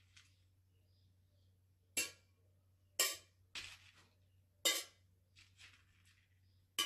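Small seeds dropped one at a time onto the upturned metal bottoms of tin boxes, about five sharp, tinny clicks a second or so apart.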